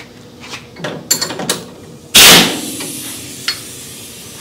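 A few light metal clicks as a socket goes onto the sway bar end link nut, then about two seconds in a single short burst from an impact wrench snugging down the end link, which was still a tad loose, followed by a fading hiss.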